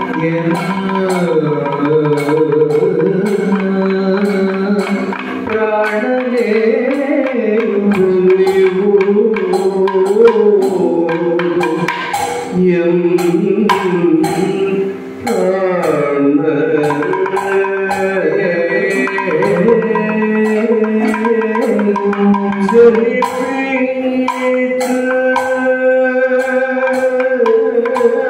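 Kathakali music: a male singer holds long melodic lines that slide in pitch, over continuous percussion from drums and metal time-keeping strokes.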